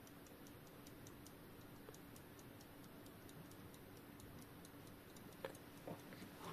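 Junghans wall clock movement's balance escapement ticking faintly and quickly, about five ticks a second. It runs with too little balance amplitude and, in the repairer's view, catches on something from time to time. A few light knocks from handling the movement come near the end.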